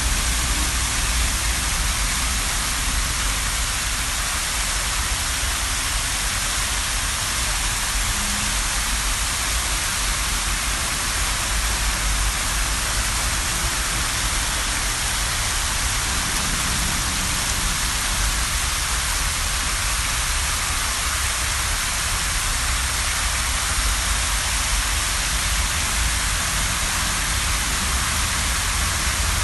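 Public fountain's jets of water splashing into its basin, a steady, unbroken hiss of falling water with a low rumble underneath.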